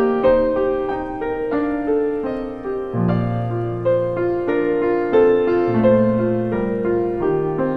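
Piano music laid over the pictures: a melody of separate, evenly paced notes, with low bass notes joining about three seconds in.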